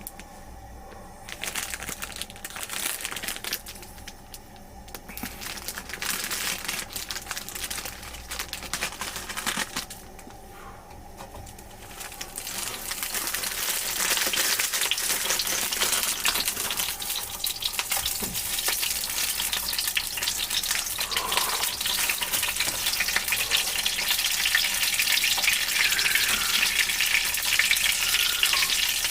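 Intermittent crinkling and handling noises, then from about 13 seconds in a steady crackling sizzle of oil at about 170 °C that grows louder: menchi katsu frying in a frying pan.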